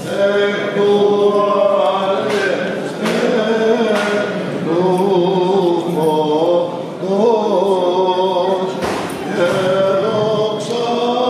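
Greek Orthodox Byzantine chant sung by male voices in slow, winding melodic lines over a steady low held drone note (the ison).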